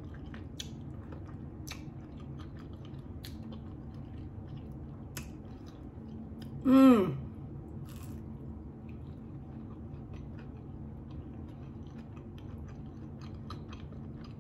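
Close-up chewing and wet mouth clicks of a person eating a chicken quesadilla and a pickle. About seven seconds in comes a brief loud vocal sound that falls in pitch.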